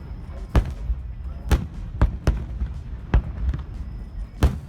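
Fireworks shells bursting: about six sharp bangs at uneven intervals over a continuous low rumble.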